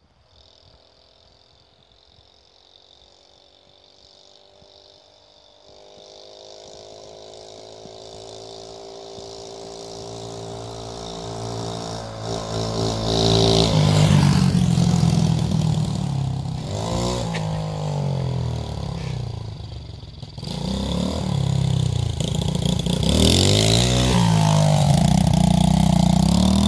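Mini bike's small engine approaching from afar, growing steadily louder until it passes close about 14 seconds in. It then revs up and down with its pitch rising and falling, eases off briefly around two-thirds of the way through, and runs loud again as it rides by near the end.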